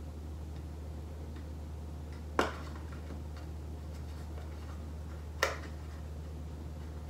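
Small green cardstock box being squeezed between the fingers while its glue sets: two sharp clicks of the card about three seconds apart, over a steady low hum and faint, evenly spaced ticks.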